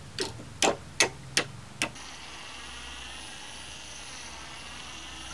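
A steel claw hammer taps five times at screw heads in a reclaimed wooden board, the screw heads clogged with dried concrete. About two seconds in, a cordless drill starts and runs steadily with a high whine, backing the old screws out of the board.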